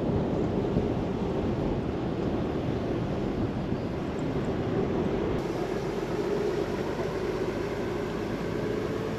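Land Rover Discovery 4 on the move: steady road, tyre and engine noise with some wind. From about halfway in, a faint hum rises slightly in pitch.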